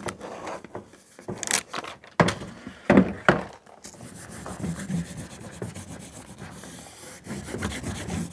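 Hands rubbing and pressing foil-faced sound-deadening mat onto the underside of a stainless steel sink: a steady rustling rub over the foil, with a few sharp knocks in the first half.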